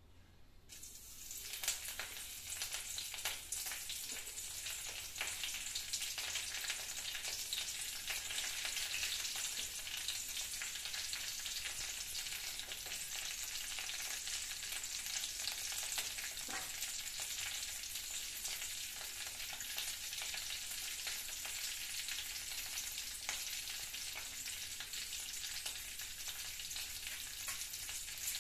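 Mustard seeds, urad dal and curry leaves frying in hot oil in an aluminium kadai for a tempering: a steady sizzle, dotted with many small crackling pops, that swells up about a second in.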